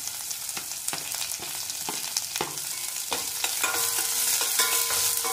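Chopped onions sizzling in hot oil in a stainless steel kadhai, with a spatula scraping and clicking against the pan as they are stirred. A faint steady tone joins about three and a half seconds in.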